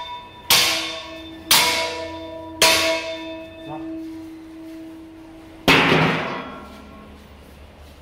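An iron poker strikes the metal grate in a coal-fired pit oven: three ringing metal clangs about a second apart. About six seconds in comes one louder metallic crash, which fits the large metal lid being handled.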